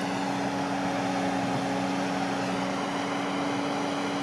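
Bobcat loader's engine running at a steady speed, a constant hum with no revving.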